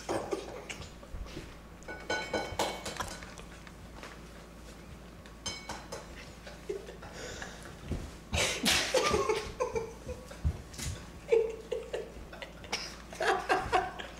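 Eggs being tapped and cracked by hand against mixing bowls, with light clinks of dishes and bursts of stifled laughter.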